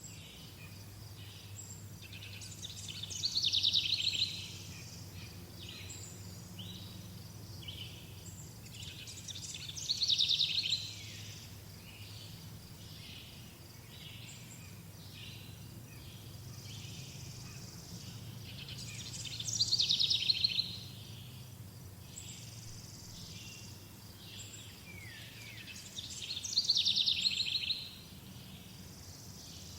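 Birdsong: one bird repeats a loud, rapid trilled song phrase four times, several seconds apart, while other birds chirp softly throughout. A faint low steady hum runs underneath.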